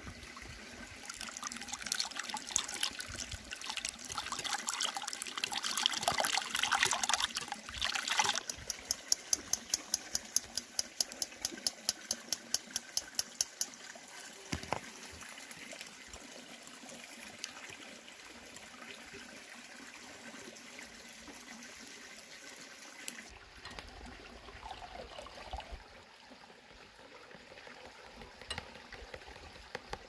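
A metal wire whisk beats eggs in a glass bowl: a busy wet sloshing and clinking, which settles into a steady rhythm of about four clinks a second before dying down to quieter stirring.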